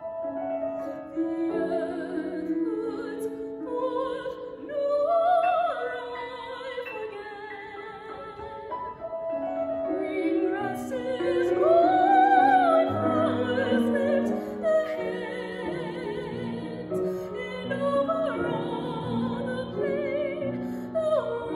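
A woman singing a classical art song in operatic style with vibrato, accompanied by a Steinway grand piano. The voice swells to its loudest a little past the middle.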